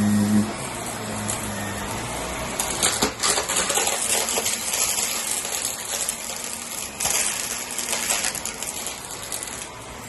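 Vacuum cleaner running on a rug, with a crunchy crackling and rattling of debris being sucked up from about two and a half seconds in; it quietens just before the end.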